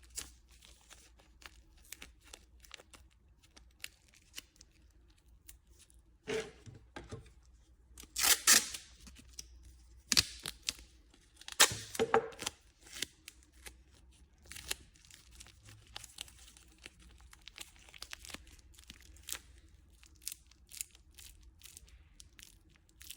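Adhesive tape being peeled off and wrapped around a pair of pliers: sticky ripping sounds, two louder rips near the middle, among small clicks and crinkles of handling.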